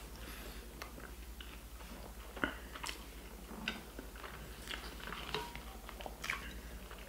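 A person chewing a mouthful of burger up close, with scattered wet mouth clicks and smacks; the sharpest click comes about two and a half seconds in. A steady low hum runs underneath.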